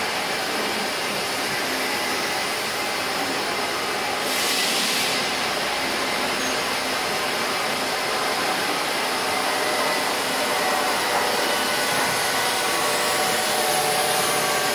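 Steady machine-shop din from rows of running CNC lathes: an even hiss with faint steady whines over a low hum. A brief louder hiss comes about four seconds in.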